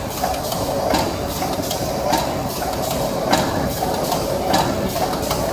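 Vertical form-fill-seal clutch-brake auger filler pouch packing machine running: a steady mechanical hum with a sharp clack about every 1.2 seconds, one per pouch cycle.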